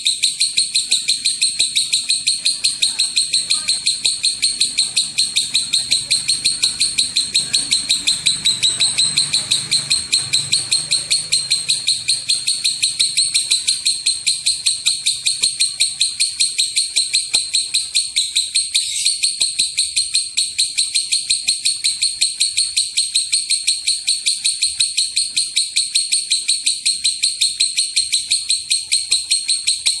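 Fischer's lovebird chattering: one long, unbroken run of rapid, evenly repeated shrill notes, the long 'ngekek' song.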